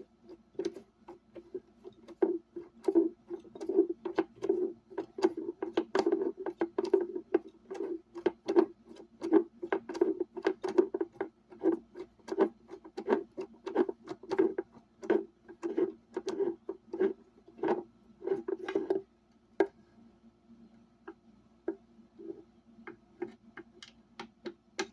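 Screws being turned out of a speaker cabinet with a hand screwdriver: a fast, even run of clicks and creaks, about two to three a second, that stops about three-quarters of the way through and gives way to a few scattered clicks.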